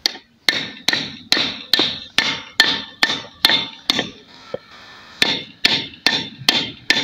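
Hammer blows on the steel shaft of a washing machine motor's rotor, about two a second, each with a short metallic ring, working the ball bearing on the shaft during a bearing change. The blows stop for about a second, a little after halfway.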